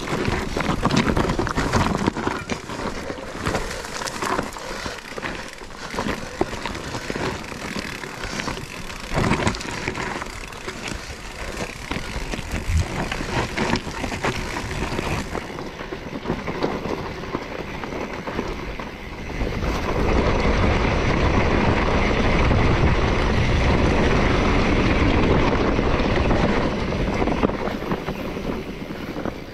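A vehicle driving over a rough, slippery track. For the first part it jolts and rattles with many knocks, then from about two-thirds of the way in a steadier, louder running noise takes over.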